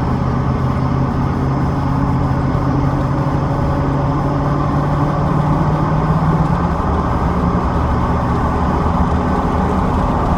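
Chevrolet Silverado pickup driving at highway speed, heard from inside the cab: a steady drone of engine and road noise, with a low hum that shifts slightly in pitch about two-thirds of the way through. The truck is running on a leaking right rear tyre down to about nine PSI.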